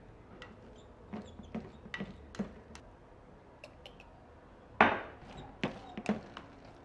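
Plastic rice paddle scraping and tapping against a rice cooker's inner pot while mixing cooked rice with radish and corn: scattered light taps, with one sharper knock about five seconds in.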